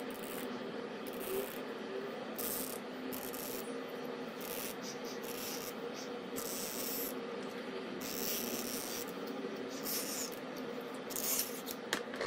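Fingers rubbing and scraping over an opened iPhone XS Max's battery and board while the phone shifts on the tabletop, in a string of short scrapes. A steady low hum runs underneath.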